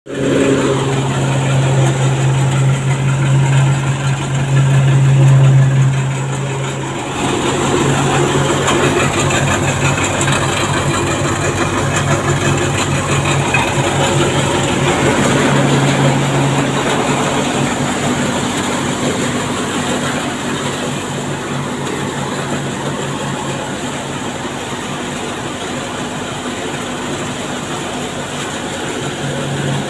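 30 hp multicrop thresher running under load with crop being fed in: a steady mechanical hum and clatter over a low drone, louder for the first several seconds, then slightly quieter.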